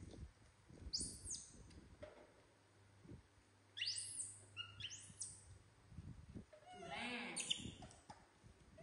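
Baby macaques giving high-pitched squeaky calls, each rising and then falling in pitch. Two short ones come about a second in, longer ones around four and five seconds, and a quicker cluster near seven seconds.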